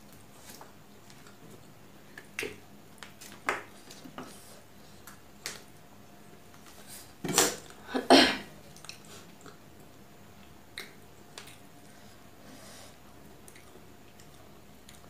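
A person eating curry and rice by hand: scattered wet mouth clicks and chewing with light finger and plate sounds, and a louder pair of sharp sounds about seven and eight seconds in.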